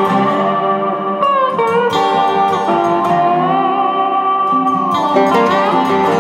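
Background music led by a guitar, with notes that slide up and down over steady held chords.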